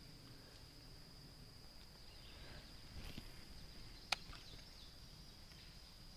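Faint steady high-pitched insect trill, like summer crickets, with one sharp click about four seconds in.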